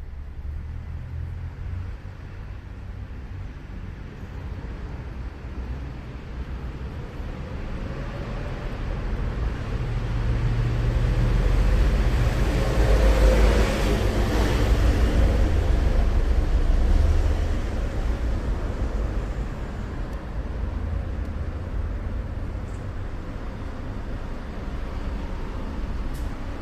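Rumble of a passing vehicle, swelling to its loudest about halfway through and then fading away.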